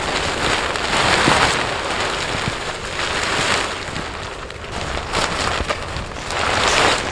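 Tent rainfly fabric rustling and swishing as it is flung over a dome tent and dragged across its top, in several loud swells of crumpling noise.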